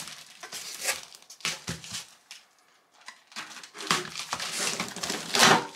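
Utility knife slicing through packing tape and cardboard along a box's seam, in several scratchy strokes, the loudest near the end.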